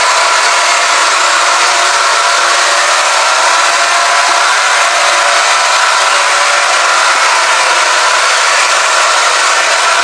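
Emergency alert system (EAS) alarm sounding continuously: a very loud, harsh, buzzing tone that holds steady without a break.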